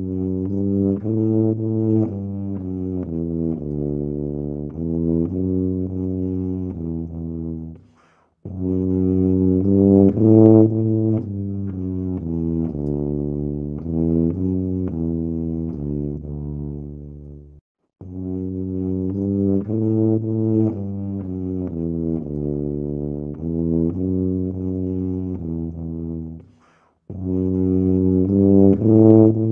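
Low-pitched brass-sounding instrument playing a melody in phrases of about eight to nine seconds, with short breaks between them; the opening phrase comes back about halfway through.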